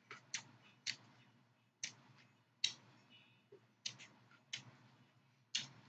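Chewing crisp raw vegetables in a lettuce wrap with carrot and green pepper strips: faint, sharp mouth crunches and clicks at uneven intervals, about nine of them.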